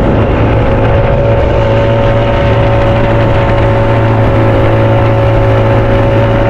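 Outboard motor driving a wooden fishing canoe at steady cruising speed: an even engine hum that holds one pitch, with water rushing past the hull.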